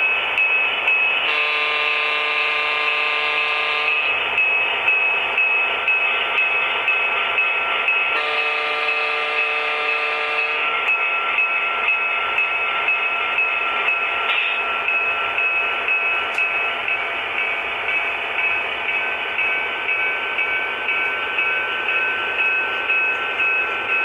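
Sound decoders in model Reading Fairbanks-Morse Trainmaster diesels play a running diesel engine through small speakers. Over it come two long horn blasts, the first about a second in and the second about eight seconds in.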